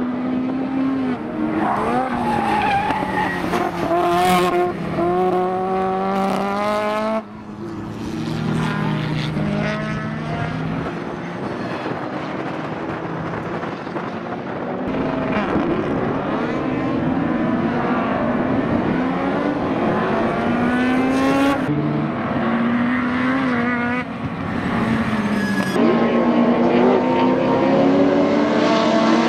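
Race car engines at full throttle, revs rising through the gears and falling as the cars brake for corners, led by a Ford Escort's Pinto/Cosworth four-cylinder racing against a second car. The sound changes abruptly a few times.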